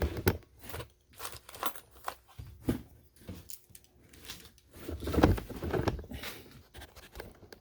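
Small metal sewing machine presser feet being handled and dropped into containers, clinking and clattering in irregular clicks, with a busier stretch about five seconds in.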